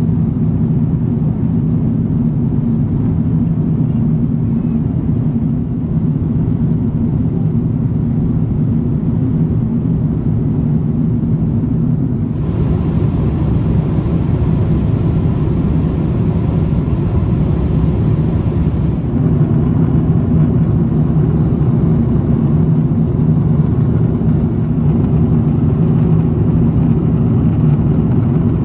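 Steady cabin noise aboard an Airbus A340-300: a deep, even rumble of engines and airflow with a faint hum. For about six seconds in the middle a brighter hiss joins it.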